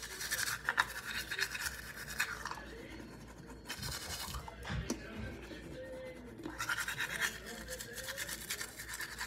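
Manual toothbrush scrubbing teeth with rapid back-and-forth strokes. The strokes come in two spells, with a quieter stretch in the middle.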